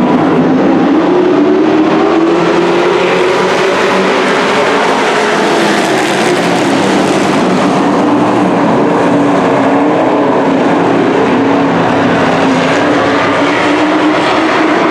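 Engines of a pack of dirt-track stock-car trucks racing, loud and continuous, their pitch rising over the first few seconds and easing back down later as they come off the throttle.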